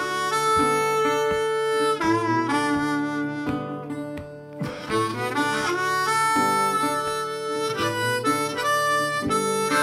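Background music: a melody of held notes over a steady low accompaniment.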